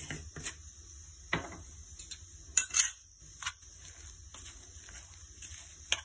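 A metal spoon stirring and scraping inside a stainless steel grinder jar, mixing salt and coriander into thick coarse chana dal paste. Irregular clinks and scrapes, with two sharp knocks of metal on metal a little under three seconds in.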